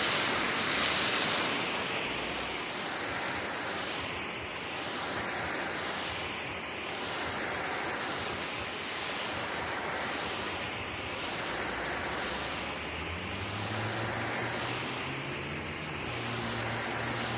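Water spraying onto a lawn, a steady hiss that swells and fades in a regular sweep about every two seconds. About three-quarters of the way in, a low engine hum joins underneath.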